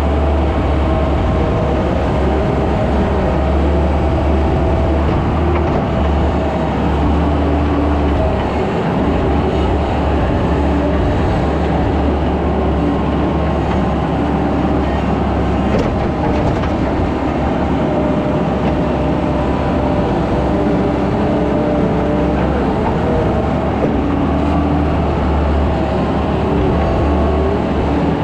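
Skid steer engine running steadily at working revs, with a strong low hum and higher tones that shift in pitch now and then as the machine works.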